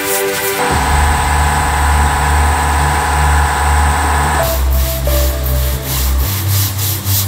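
Electronic background music with a steady beat, a deep bass line that steps between notes, and a held synth chord in the first half.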